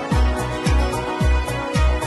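Background music with a steady kick-drum beat, a little under two beats a second, and cymbal strikes between the beats.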